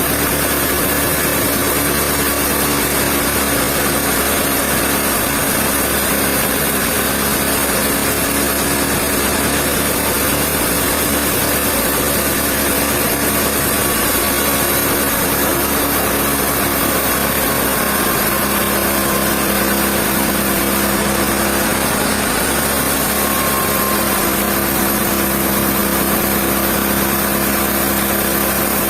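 Sawmill machinery running steadily: an even motor drone with a few held hum tones, without pauses or changes in level.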